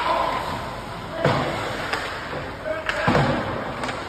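Ice hockey being played: a handful of sharp knocks and clacks of sticks and puck, one like a puck slamming into the boards, with players calling out to each other.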